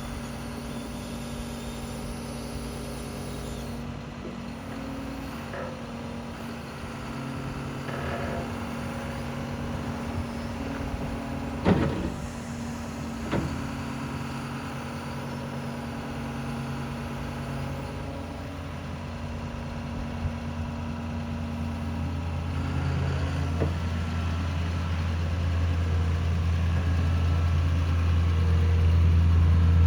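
John Deere 210P excavator's diesel engine running steadily, with two sharp clanks about twelve and thirteen seconds in. The engine grows louder over the last several seconds.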